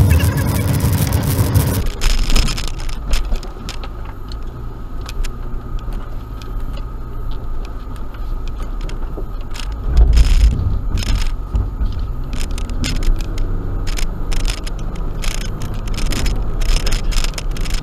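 Suzuki Grand Vitara driving over a rough dirt track, heard from inside the cabin: a low engine hum, louder for the first two seconds, with frequent clicks, knocks and rattles as the vehicle bounces, and a heavier bump about ten seconds in.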